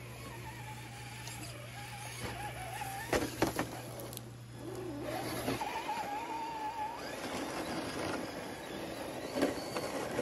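A radio-controlled pickup truck's motor whining, its pitch rising and falling with the throttle. There are a few sharp knocks from the tyres hitting rocks, then gritty crunching as it climbs loose dirt and stones.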